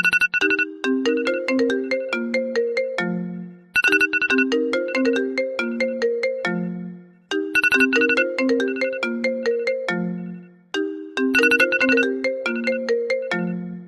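An Apple iPhone 6S sounding its alert tone: a marimba-like melody that repeats about every three and a half seconds, each round opening with a quick burst of high chiming notes.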